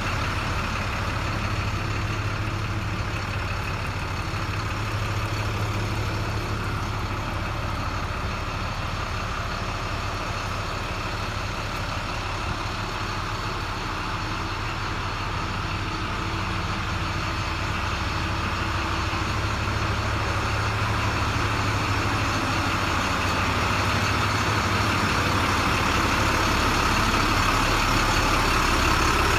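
2008 International IC CE school bus's diesel engine idling steadily, getting a little louder near the end.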